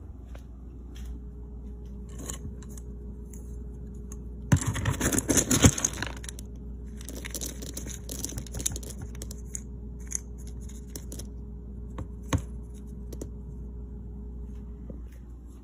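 Dry dog kibble rattling and scraping as a scoop digs into a plastic storage bin: two dense bursts of pellets clattering, each about a second and a half long, followed by a few single clicks.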